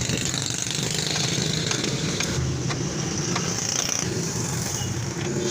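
A motor vehicle engine running steadily, with scattered sharp clicks and taps.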